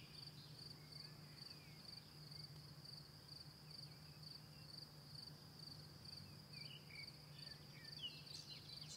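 Faint, steady chirping of an insect, a high note pulsed evenly several times a second, with a few faint bird chirps near the end.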